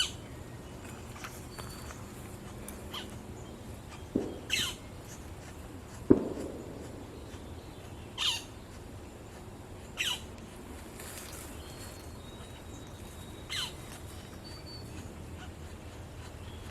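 A bird gives four short calls, each falling in pitch, a few seconds apart. Two knocks come about four and six seconds in; the second is the loudest sound.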